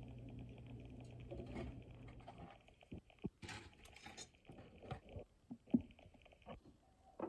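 Quiet kitchen handling noises: a low steady hum for the first couple of seconds, then scattered light taps and clicks with a brief rustle.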